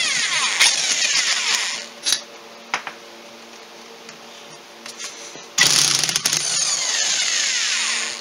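Heavy-duty electric drill with a socket on a long extension, spinning out the crankcase bolts of an engine case. It runs twice, each time for about two and a half seconds: once at the start and again about halfway in. A few light clicks come in the pause between.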